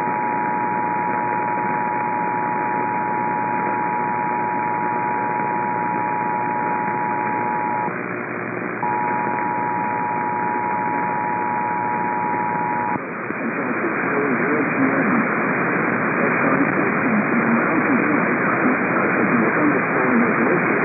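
Emergency Alert System two-tone attention signal, two steady tones sounding together, heard through a radio receiver over static hiss. It drops out briefly about eight seconds in and stops about thirteen seconds in. After that only louder radio static with a faint wavering sound remains.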